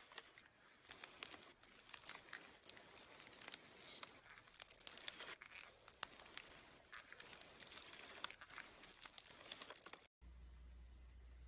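Slime being squeezed and stretched by hand, with many small irregular crackling clicks and pops. About ten seconds in it cuts off, leaving only a low steady hum.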